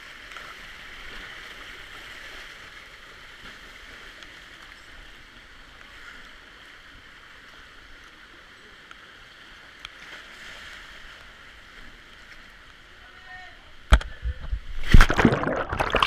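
Steady rush of flowing water in a canyon. About fourteen seconds in comes a sudden loud splash, followed by about two seconds of churning water, like a person jumping into a pool.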